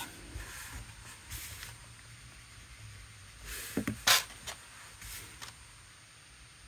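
Art supplies being handled and set down on a tabletop: faint rustling, then a few short knocks and clicks about four seconds in.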